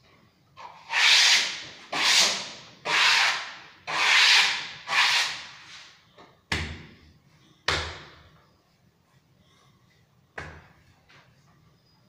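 A wallpaper smoothing tool rubbed over freshly hung textured wallpaper in five firm strokes about a second apart. A few short knocks follow, two close together and a fainter one later.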